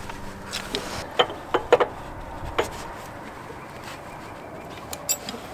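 Sharp metal clicks and knocks as the PTO stub shaft of a John Deere 6125 tractor is worked by hand back into its housing, which is not sliding in easily. There is a cluster of clicks between one and three seconds in and one more near the end, with a low hum that stops about a second in.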